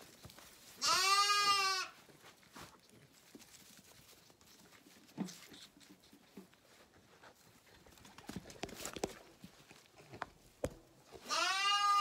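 Zwartbles lamb bleating twice, about ten seconds apart. Each bleat is a loud, roughly one-second call whose pitch rises and then falls slightly.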